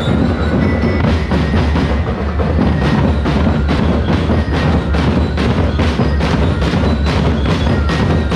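Ati-Atihan street-dancing drum band: drums and wooden sticks beating a fast, even rhythm, about three beats a second.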